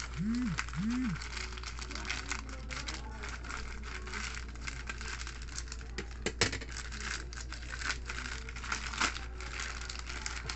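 A stiff plastic courier pouch being crumpled and pulled open by hand: continuous crinkling and crackling, with a couple of sharper snaps of the plastic about six and a half and nine seconds in.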